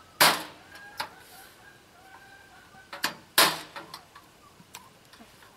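Two loud, sharp knocks about three seconds apart, with a few lighter clicks, as a small wooden frame is handled and knocked on a garden wagon.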